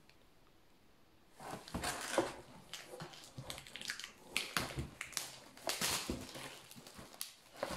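Clear plastic wrapping crinkling and rustling as paperback books are handled and unwrapped in a cardboard box. Irregular crackles and scrapes start about a second and a half in.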